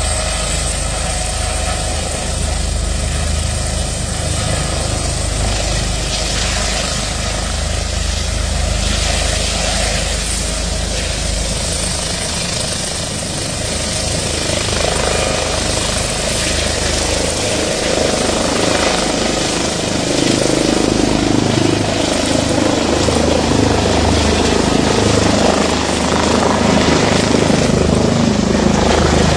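Air ambulance helicopter taking off: a steady turbine whine and rotor noise as it spools on the pad, lifts into a hover and climbs away overhead, growing louder from about twenty seconds in.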